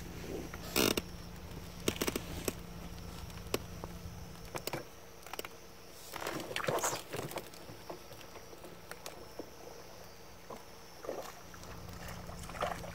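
Handling noises: scattered sharp clicks, light knocks and short rustles, a cluster of them about six to seven seconds in and again near the end, over a faint steady hum.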